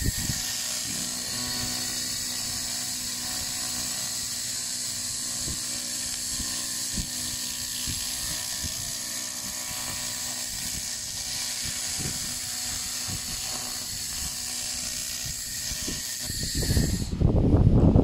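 Handheld fiber laser cleaning gun ablating rust from a carbon steel plate: a steady high-pitched hiss and whine that cuts off about a second before the end. As it stops, a loud low rumble on the microphone takes over.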